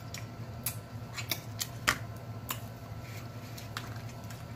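Snow crab leg shells cracking and clicking as they are broken open and picked apart by hand: a series of sharp, irregular cracks, the loudest about two seconds in, over a steady low hum.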